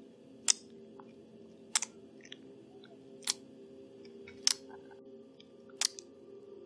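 Close-up wet mouth clicks and sucks from an ASMR performer acting out a vampire drinking from the neck. There are six sharp clicks, about one every second and a quarter, over a steady low hum.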